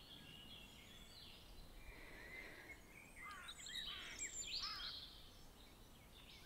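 Faint birdsong over a soft background hiss: several short chirps and trills, busiest between about two and five seconds in.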